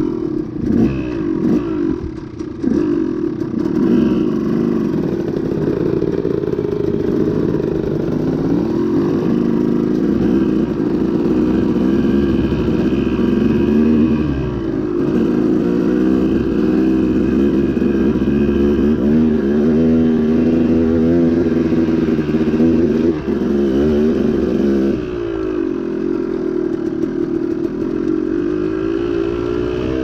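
KTM two-stroke dirt bike engine under way on a dirt trail, its revs rising and falling as the rider works the throttle. The revs drop back about 25 seconds in, then climb again near the end.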